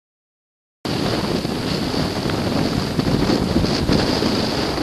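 Strong wind blowing across the camera microphone, a loud, dense rushing noise with a heavy low rumble, starting abruptly about a second in after dead silence.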